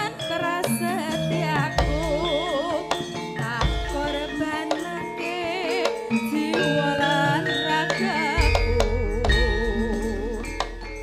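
A female Javanese sinden singing a melody with heavy vibrato over a live gamelan ensemble of metallophones and drums. Deep low strokes sound a few times, the last one holding on near the end.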